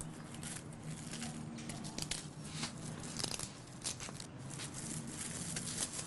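Packaging being torn open and crinkled by hand as a small wrapped package is unwrapped, with irregular crackles throughout.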